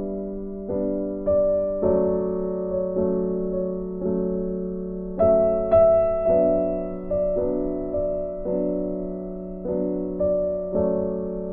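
Background piano music: gentle notes struck about once or twice a second over held chords, each note fading away.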